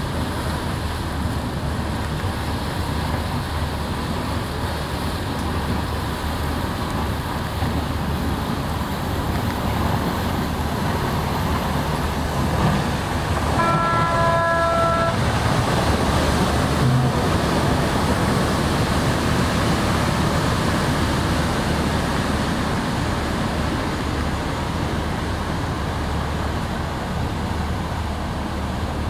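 Steady low engine hum with the rush of wind and water, growing louder as a high-speed passenger boat runs past close by. About halfway through, a ship's horn sounds once for about a second and a half.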